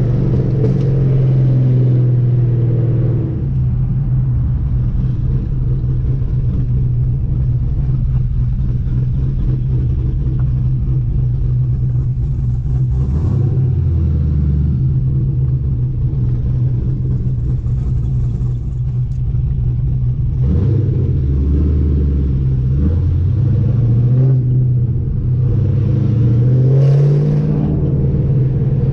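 Cammed Chevrolet Camaro SS V8 running under way, with a steady rumbling exhaust. Its pitch drops twice, about halfway through and again after about two-thirds, then climbs again near the end as the car speeds up.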